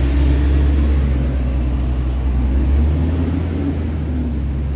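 Low engine rumble of a motor vehicle on the road alongside, steady with a faint hum of pitched tones above it, easing off slowly.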